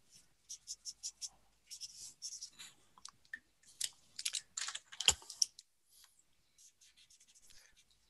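Felt-tip marker drawing on paper: a run of short, quick strokes as lines and wall hatching are drawn, stopping about five and a half seconds in.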